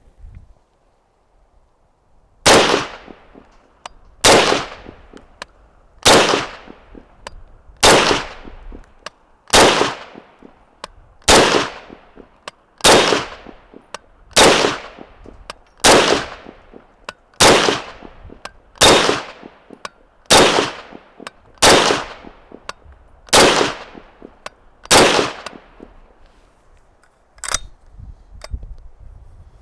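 M1 carbine firing .30 Carbine handloads semi-automatically: fifteen shots at a steady pace of about one every one and a half seconds, each trailing off into a short echo. A smaller, quieter knock follows near the end.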